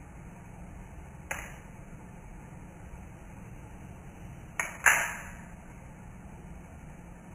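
Benchmade 67 balisong being flipped: three sharp metallic clicks with a ringing tail as the handles snap against the blade, one about a second in and a quick pair around the middle, the last the loudest.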